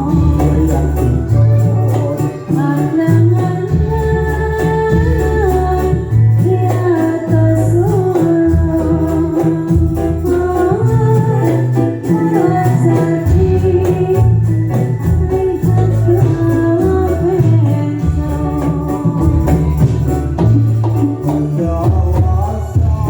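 Dolalak dance music: a sung melody over a band with a heavy, pulsing bass beat and jingling percussion.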